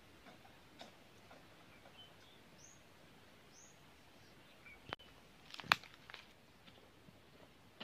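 Quiet countryside ambience with a few short, high bird chirps and whistles scattered through it, and a handful of light clicks and knocks; a sharp knock about three-quarters of the way through is the loudest sound.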